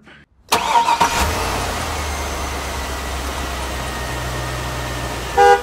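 Intro sound effect: a steady engine-like rumble under a noisy rush starts about half a second in, and a short car-horn toot sounds near the end.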